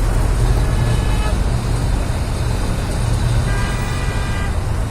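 Steady highway traffic with a deep rumble, and a vehicle horn sounding twice: briefly about half a second in, then for about a second later on.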